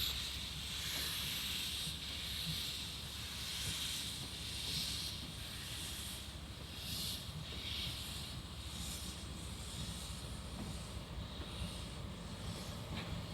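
C12 steam locomotive hissing steam: a steady hiss that swells and fades every second or two, over a low rumble.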